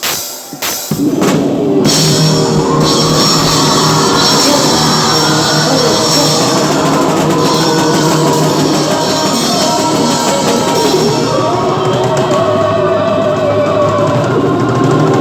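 Live rock band playing loud, with the drum kit prominent. A few separate drum hits open it, and the full band comes in about a second or two in and plays on steadily.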